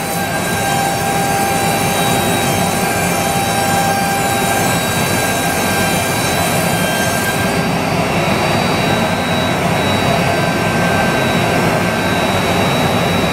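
CNC router spindle running at speed while it routes grooves into a wooden board. A steady high whine sits over a dense cutting noise, and the whine's pitch lines come and go as the cutter moves along the groove.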